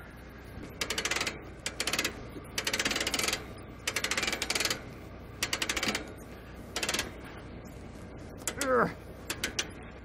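Hand winch on an old truck-mounted crane being cranked, its ratchet clicking rapidly in about seven short bursts, one for each stroke of the handle, with pauses between.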